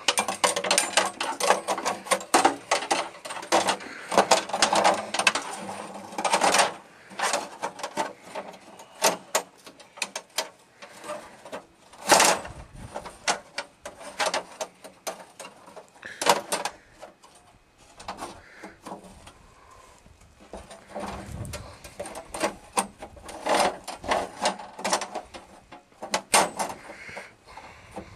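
Irregular metal clanks, knocks and rattles from parts of a band sawmill being handled and adjusted by hand at its band wheel and blade guide. The knocks come in uneven clusters, with a few louder hits about 12 and 16 seconds in.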